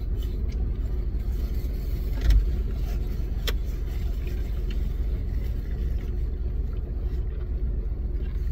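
Steady low rumble of a car idling, heard from inside the cabin. A thump sounds a little over two seconds in, and a short click about a second later.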